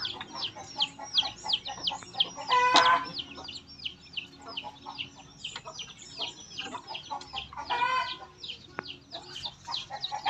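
Chickens stirred up in a crowded wooden coop as someone reaches in to catch one: a constant run of short, high, falling peeps, with a louder squawk about three seconds in and another near eight seconds.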